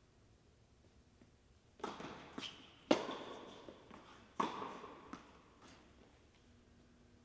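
Tennis rally on an indoor court: a string of sharp racket hits and ball bounces, each with a hall echo, starting about two seconds in. The loudest hit comes about three seconds in.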